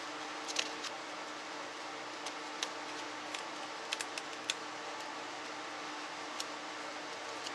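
Light taps and ticks of a felt-tip marker and fingers on a paper notepad, about ten scattered through, over a steady low hum.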